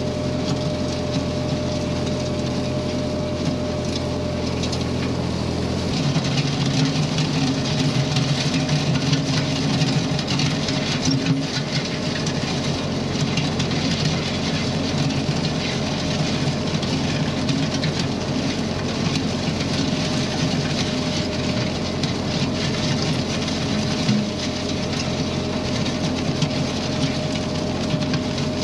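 Ford 8N tractor's four-cylinder flathead engine running steadily under load while its three-point box blade scrapes dirt and gravel. The engine note changes and gets a little louder about six seconds in. It is running well on a replacement carburetor.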